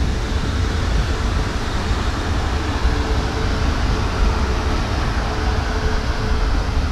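South West Trains Siemens Desiro electric multiple unit running past: a steady low rumble of wheels on rail with a faint steady whine above it.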